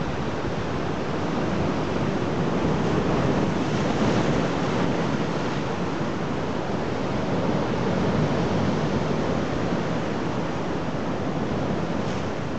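Sea surf breaking over dark shoreline rocks and concrete tetrapods: a steady rushing wash that swells about three to five seconds in and again near eight seconds.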